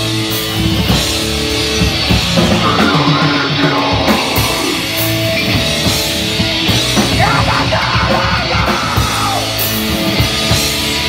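A live heavy band playing at a steady, loud level: distorted bass guitar and drums with crashing cymbals, and a voice yelling into a microphone over them.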